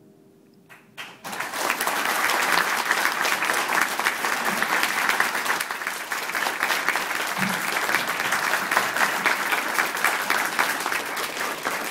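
The last piano chord dies away, then a seated audience breaks into applause about a second in, a couple of early claps followed by steady, full clapping.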